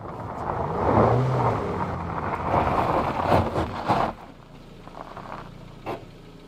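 A Ford Focus hatchback driving up over gravel and pulling to a stop, engine running and tyres crunching on the stones. The noise swells in the first second and falls away about four seconds in.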